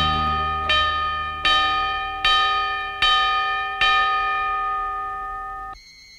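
Recorded music playing over a sound system: a bell-like chime struck six times, about one stroke every three-quarters of a second, each ringing and fading. The last stroke is left to die away before the sound cuts off suddenly near the end, leaving a faint steady high tone.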